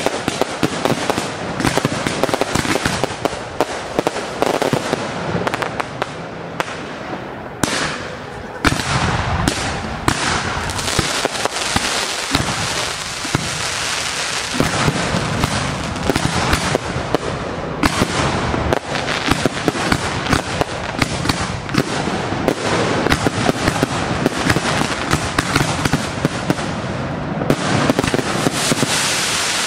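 Fireworks display: a dense, unbroken barrage of pops and crackles, with a sharp louder bang about eight and a half seconds in.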